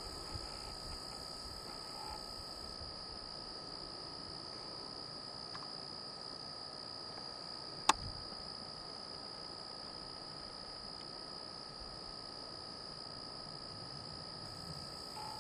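Steady high-pitched drone of insects, with one sharp click about eight seconds in.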